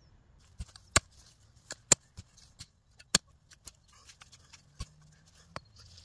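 Irregular sharp clicks and snaps, about a dozen, from a mattock being handled in dry grass and undergrowth as someone gets ready to dig up a plant's root. The loudest come about one and two seconds in and just after three seconds.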